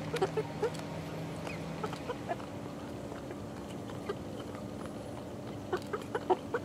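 Young chickens clucking softly, with sharp pecking taps in a cluster near the start and another near the end. A steady low hum runs underneath.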